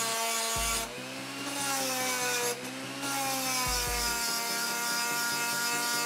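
Small electric motor of a power tool running continuously, its whine sagging in pitch and recovering a couple of times, with a rasping hiss of metal being ground as the mini chuck is worked to enlarge its hole.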